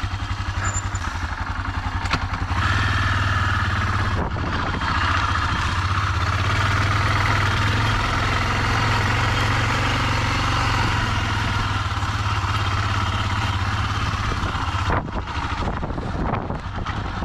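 Yamaha XT 600 E's single-cylinder four-stroke engine running as the bike is ridden, a steady low engine note with a rush of noise over it. About fifteen seconds in the sound drops and thins out.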